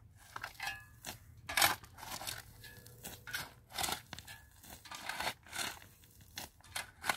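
Irregular scraping and scuffing with light clicks and clinks, of things being handled and worked, in quick short strokes several times a second.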